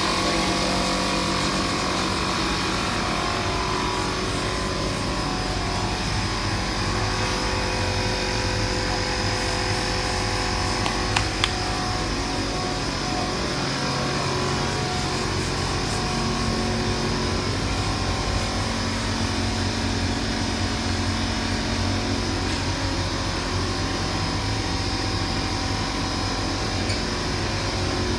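Steady drone of running shop machinery, with a constant hum, broken by two sharp clicks about eleven seconds in.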